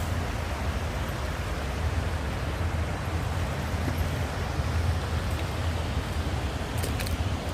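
Waterfall: a steady rushing of falling water with a deep low rumble underneath.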